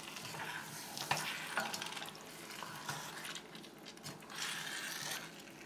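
Wooden spoon stirring and scraping a yogurt masala around a whole chicken in a metal pressure cooker, with irregular scrapes and light knocks over a steady low sizzle of frying.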